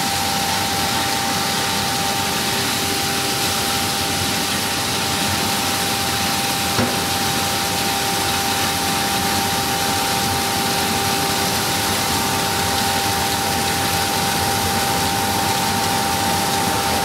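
Bean peeling and splitting machine running steadily: an even mechanical rush with a constant whining tone through it.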